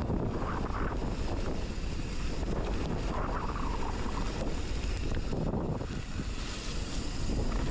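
Steady wind rush buffeting the microphone of a mountain bike ride, with low rumbling from the bike rolling down a dirt trail.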